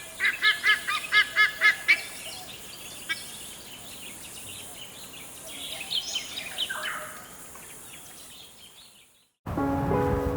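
Wetland birds calling: a rapid series of about seven loud, pitched calls, about three a second, then quieter chirps and calls that fade out. Music begins near the end.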